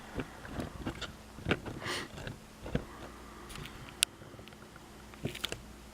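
Light scattered clicks and small knocks of a just-picked lock and lockpicking tools being handled and set down, with one sharper click about four seconds in.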